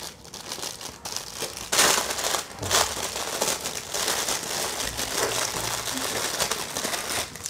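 Clear plastic bag crinkling and rustling as hands open it and handle the drone accessory parts inside. It comes in irregular bursts, loudest about two seconds in, then goes on as steadier rustling.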